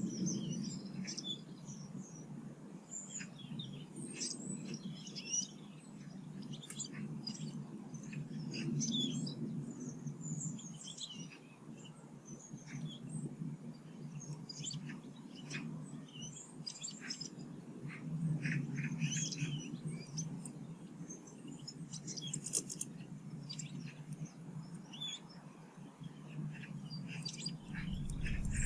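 Garden birds chirping and calling, many short high chirps one after another from several birds, over a low background rumble.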